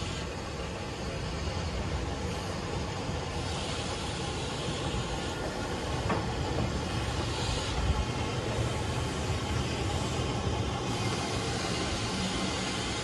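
LMS Stanier Mogul 13268 steam locomotive running slowly past tender-first. A low rumble of wheels on rail grows louder as it draws near, with hiss of steam coming and going every few seconds.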